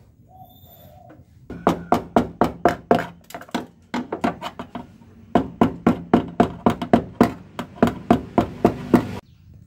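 Rapid tapping on the steel front panel of a Suzuki Carry van, about four sharp knocks a second with a metallic ring. The taps come in two runs with a short pause between them, as a dent in the panel is worked out.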